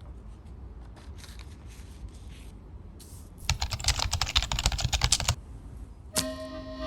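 A quick, dense run of sharp clicks and taps for about two seconds in the middle, after a few soft rustles. Music with held notes starts near the end.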